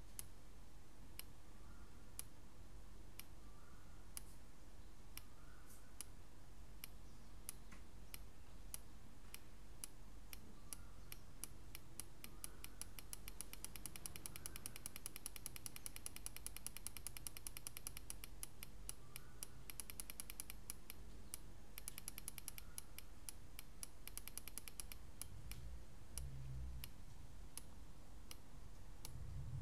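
Axicom DPDT signal relay clicking as it switches between two LED circuits. It clicks about twice a second at first, speeds up to a rapid run of clicks from about halfway through as the potentiometer is turned to shorten the switching delay, then slows again. A few low thumps come near the end.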